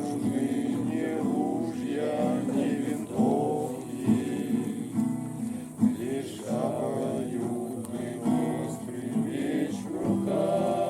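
People singing a Christian song together to guitar accompaniment.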